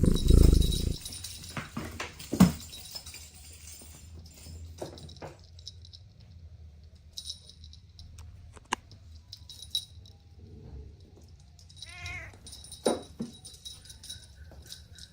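Kittens playing: scattered light taps and rustles, with one short kitten mew about twelve seconds in. A loud low rumble stops about a second in.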